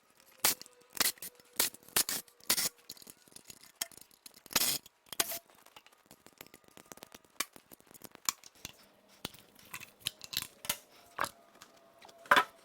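Sharp metallic clicks and clinks of hand tools working on the 4.6L DOHC V8's intake manifold as it is unbolted and lifted off, about two a second at first, then sparser, some with a short ring.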